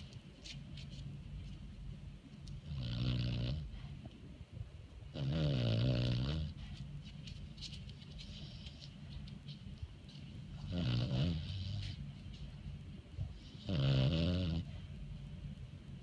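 Senior beagle snoring in its sleep: four long snores a few seconds apart, each about a second long.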